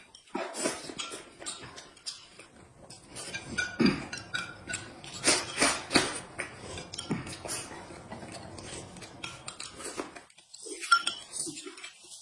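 Close-up eating sounds: slurping and chewing, with chopsticks and a spoon clinking against a ceramic plate and a glass cup in short, irregular bursts.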